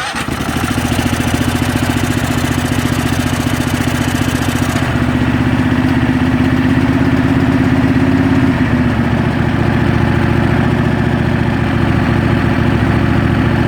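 Craftsman riding mower's Kohler Command engine running steadily, its tone getting a little duller about five seconds in.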